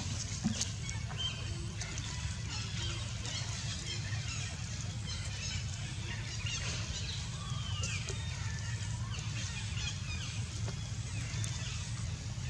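Macaques swimming in a pond: soft water sloshing with scattered small clicks and chirps, and a high call that glides down in pitch about seven seconds in, over a steady low rumble.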